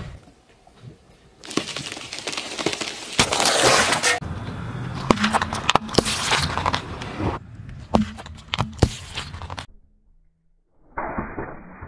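A car tyre rolling slowly over objects on asphalt and crushing them: crunching and crackling with many sharp cracks and pops, in several separate runs.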